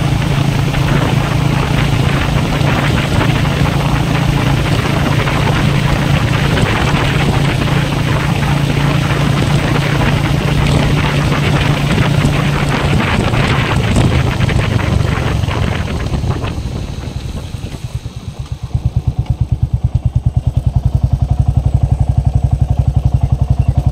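Royal Enfield Meteor 350's single-cylinder engine running at road speed with wind rush over the microphone, then slowing about 16 seconds in and settling into an even, steady idle thump.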